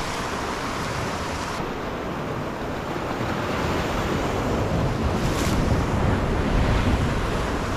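Ocean surf surging and washing over a rocky shoreline ledge, a steady churning rush that swells a little past the middle, with wind buffeting the microphone.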